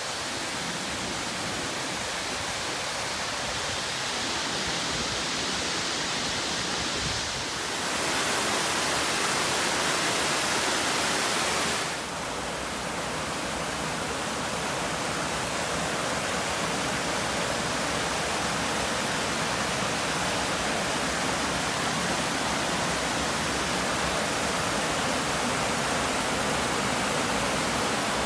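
Waterfall: the steady rush of falling water. It shifts abruptly in tone a few times and is louder and brighter for a few seconds about a third of the way in.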